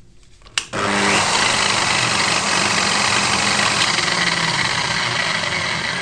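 Electric angle grinder with a cup-shaped wheel attachment switched on with a click about half a second in, then spinning up and running steadily at full speed with nothing against the wheel.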